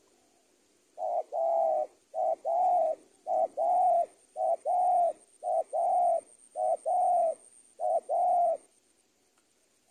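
Spotted dove cooing: seven phrases about a second apart, each a short coo followed at once by a longer one.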